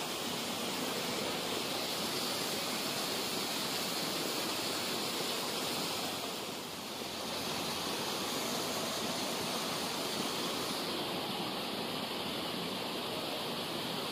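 Steady rushing of water flowing through a concrete-lined canal, easing slightly for a moment about halfway through.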